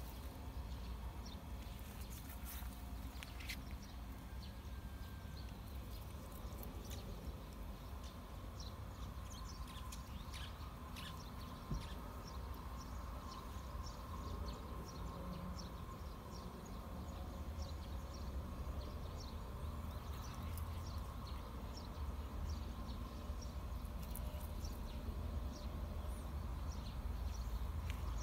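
Quiet outdoor yard ambience: a steady low rumble with scattered light ticks and rustles, and a faint steady hum.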